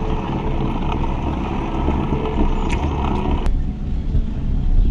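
Wind rumble on the microphone of a bike-mounted camera, with tyre and road noise from a road bicycle riding slowly. The steady hiss over it cuts off suddenly about three and a half seconds in, leaving the low rumble.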